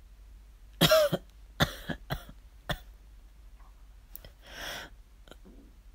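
A man coughing as if ill: one loud cough about a second in, then several shorter coughs and a breath.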